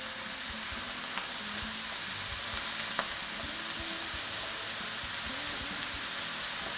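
Peppers, onion and tomatoes sizzling steadily in a frying pan, with a couple of sharp knife taps on the cutting board.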